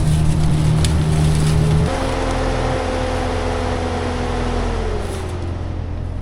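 A vehicle engine running steadily, its note shifting about two seconds in and easing down near the end.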